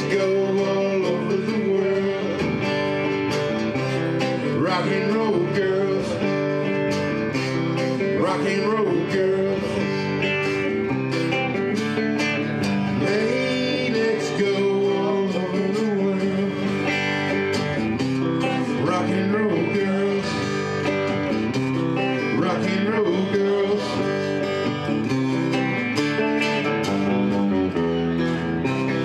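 Acoustic guitar and electric guitar playing together live in a country-style rock-and-roll song.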